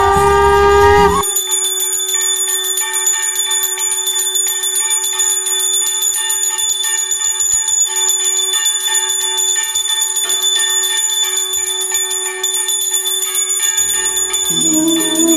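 Small brass puja hand bell (ghanti) rung rapidly and continuously, a steady shimmering ring of quick clapper strikes. Background music plays for about the first second and comes back near the end.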